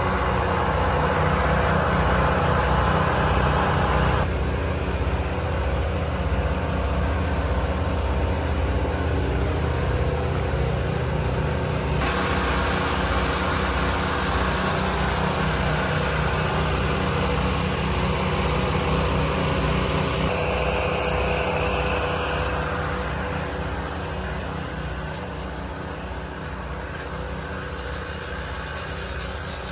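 An engine running steadily with an even low pulse. Its sound changes abruptly a few times, about 4, 12 and 20 seconds in.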